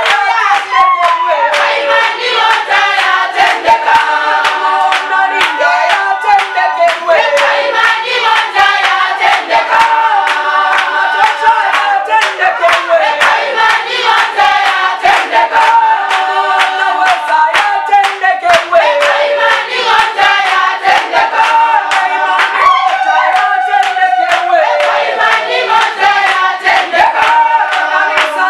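Church congregation singing a Swahili praise-and-worship song together, with steady rhythmic hand clapping.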